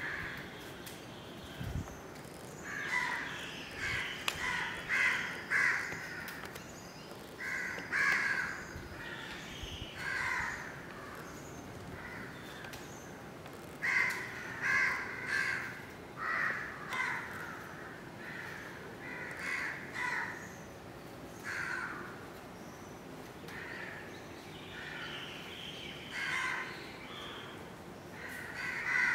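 Crows cawing in repeated bouts of several harsh calls each, with pauses of a few seconds between bouts.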